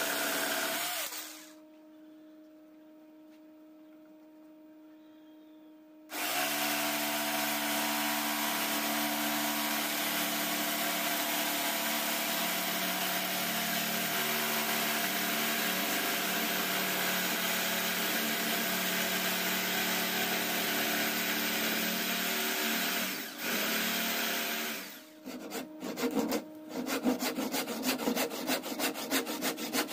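Corded electric jigsaw running and cutting through a wood slab held in a bench vise. It stops about a second in and starts again some five seconds later. Near the end it gives way to a hand saw cutting the wood in quick, even strokes.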